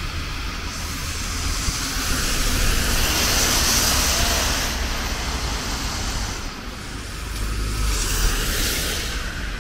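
Road traffic passing on a wet street: tyre hiss swells as a vehicle goes by about three to four seconds in and another near the end, over a steady low rumble of engines.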